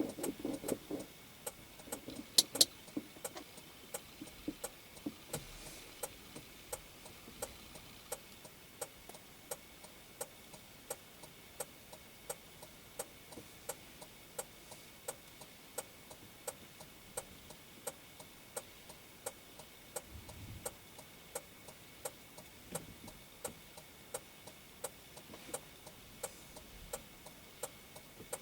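Faint, regular ticking, about two ticks a second, over a low hiss, with one louder click about two and a half seconds in.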